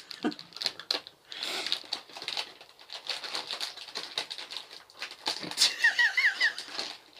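A plastic snack packet being handled and pulled open, crinkling and crackling in a run of small clicks. There is a brief giggle about six seconds in.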